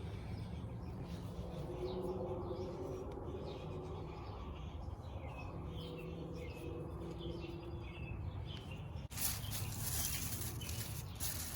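Wild birds chirping with short, high calls through the first half, over a steady low outdoor rumble. About nine seconds in, a steady rushing hiss sets in.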